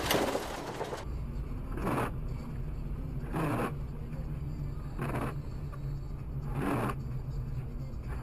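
Windshield wipers sweeping across a rain-wet windshield, one short swish about every one and a half seconds, four times, over the steady low hum of the car's engine and tyres heard from inside the cabin. It starts with a loud rushing noise that cuts off about a second in.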